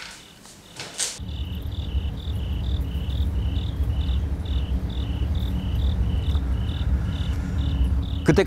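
A cricket chirping at an even pace, about two and a half chirps a second, over a steady low rumble. In the first second, a few short scratches of a quill pen on paper.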